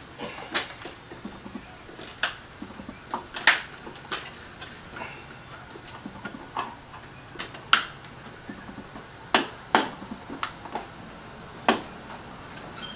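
Irregular sharp clicks and taps of hands handling and fitting plastic spoiler pieces on a raised car trunk lid, about a dozen in all, the loudest about three and a half seconds in.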